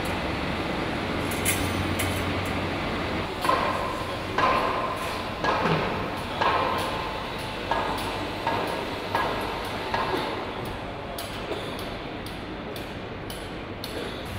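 Workshop ambience with a series of sharp metallic clanks and taps, each ringing briefly, about once a second from a few seconds in and thinning out towards the end, over a steady background noise.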